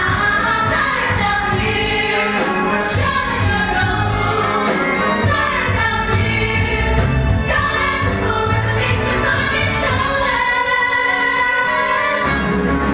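Stage musical number: several voices singing together over an instrumental accompaniment.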